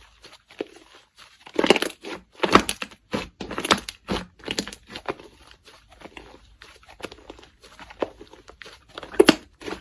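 Slime being squeezed and pressed by hand, giving irregular bursts of crunchy crackling and popping, loudest about two seconds in and again near the end.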